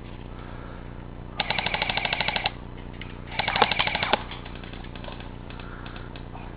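Airsoft gun firing full-auto: two rapid rattling bursts of about fifteen shots a second, the first about a second long, the second a little shorter a second later.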